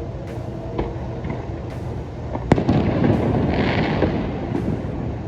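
A street firework goes off with one sharp bang about halfway through, followed by about two seconds of crackling.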